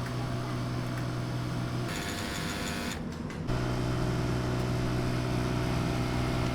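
Steady mechanical hum with a strong low drone and several fainter tones above it, changing abruptly twice, about two and three and a half seconds in.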